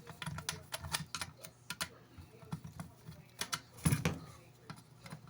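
Irregular light clicks and clinks of small metal parts and a tool being handled as a Marx Commodore Vanderbilt toy train locomotive is taken apart, with one louder knock about four seconds in.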